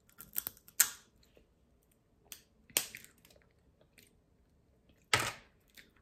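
Cooked blue crab being eaten by hand: a few sharp cracks and snaps of shell being broken apart, clustered in the first second with single ones near three and five seconds, and chewing between.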